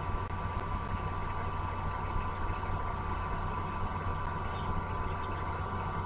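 A steady low hum with a thin higher tone over it, unchanging throughout.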